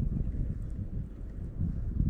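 Wind buffeting the microphone: a low, gusting rumble that swells and drops, with a stronger gust near the end.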